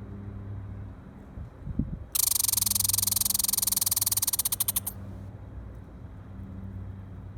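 Squirrel giving a loud, rapid chirping call: a fast run of chirps lasting nearly three seconds, starting about two seconds in. A low steady rumble lies beneath.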